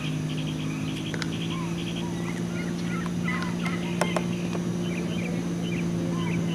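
Cessna 206's six-cylinder piston engine and propeller droning steadily on the landing approach, growing slightly louder, with birds chirping and trilling throughout and two sharp clicks, about a second in and about four seconds in.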